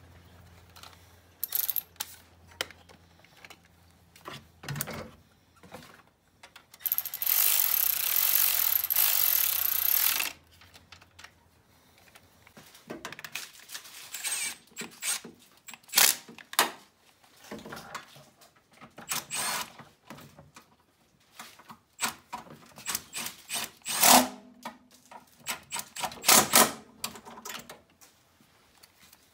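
Milwaukee Fuel cordless ratchet running in one steady whirr of about three and a half seconds, followed by a long string of irregular clicks and clanks from tools and metal parts being handled.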